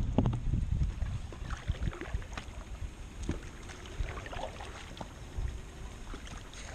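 Paddles dipping and dripping in calm river water, with small splashes and trickles, over a low rumble of wind on the microphone.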